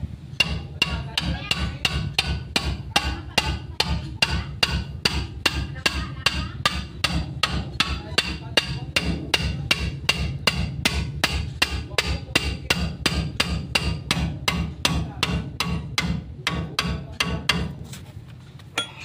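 Repeated hammer blows on steel, driving a new king pin down through the bearing into a Mitsubishi Canter's steering knuckle. The strikes come steadily at about three a second and stop shortly before the end.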